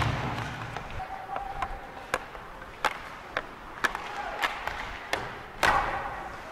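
Hockey sticks slapping pucks and pucks cracking off sticks, boards and net during a rink drill: a string of sharp knocks every half second to a second, the first and loudest with a dull thud behind it. Near the end, a short hissing scrape of skate blades on the ice.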